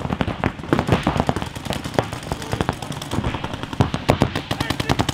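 Several paintball markers firing at once: rapid, overlapping streams of sharp pops, many a second, with one very even fast stream near the end.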